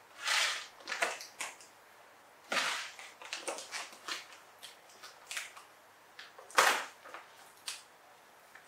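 Soft plastic baby-wipes packet crinkling and crackling in irregular bursts as a young monkey grabs and pulls at it, with the sharpest crackle about two-thirds of the way through.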